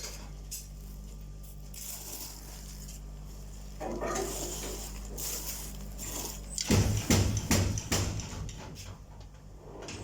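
Forge workshop: a steady low hum, then about two-thirds of the way in a rapid, irregular run of metal knocks and clatter.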